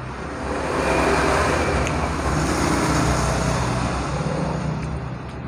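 A motor vehicle passing on the road, its engine and tyre noise swelling about a second in and fading toward the end.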